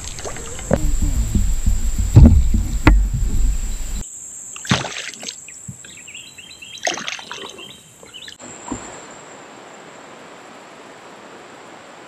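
A hooked largemouth bass splashing at the surface as it is grabbed by hand beside a plastic kayak, with sharp knocks and heavy low rumbling in the first few seconds. After that come scattered small splashes and knocks, then a faint steady hiss.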